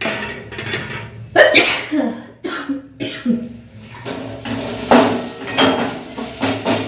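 A woman coughing and clearing her throat in a string of short, sharp fits, set off by the fumes of dried chillies and chilli powder frying in oil.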